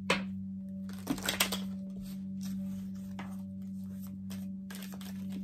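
A few short clicks and rustles of cards being handled at the table, near the start and again at about a second and a half, over a steady low hum.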